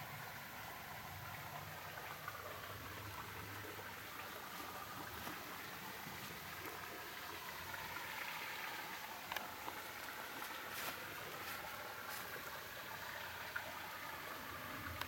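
Faint, steady outdoor background hiss with a few light clicks in the second half.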